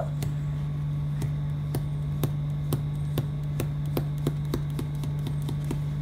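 Short, irregular clicks and taps as a thumb works oil pastel on paper over a drawing board, more frequent about two-thirds of the way through. A steady low hum lies under them.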